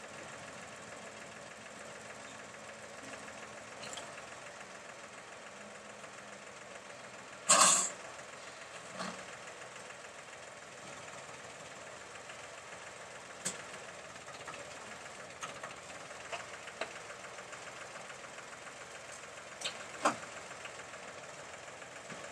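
Tractor's diesel engine idling steadily, with one short, loud burst of noise about seven and a half seconds in and a scattering of sharp knocks later on.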